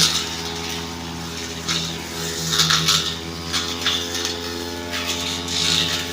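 Brush cutter engine running steadily under load, with repeated short bursts of hiss as the cutting head slashes through thick undergrowth.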